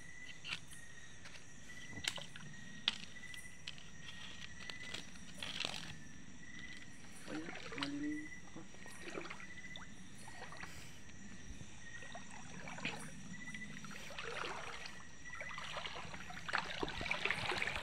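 Wading through shallow river water: irregular sloshing and small splashes, busier near the end. Behind it, a high chirp repeats steadily about every three-quarters of a second.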